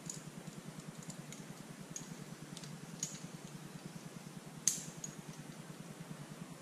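Light metallic clicks and clinks of climbing hardware, carabiners and quickdraws knocking together, scattered through, with one sharper click about two-thirds of the way through, over a steady low hum.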